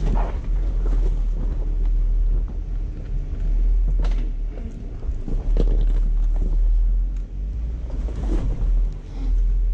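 Off-road 4x4's engine running at low speed as it crawls over rock, a steady deep rumble, with a few short knocks of tyres and chassis on the rocks.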